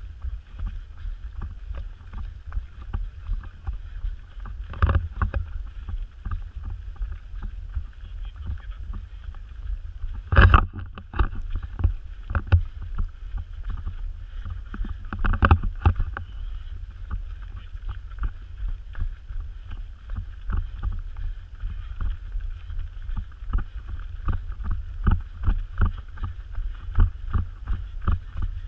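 Running footfalls on a rock and dirt trail, heard through a camera carried by a runner: a steady rhythm of about three steps a second with the camera knocking, a few harder bumps, and wind rumble on the microphone.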